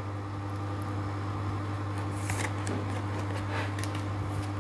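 Tarot cards being handled and shuffled in the hands: a few faint soft rustles and flicks, mostly in the second half, over a steady low hum.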